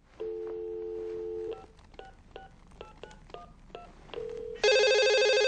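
Telephone dial tone, then a quick run of about ten touch-tone keypad beeps as a number is dialled. Near the end a short tone and then a louder, buzzy ringing tone as the call goes through.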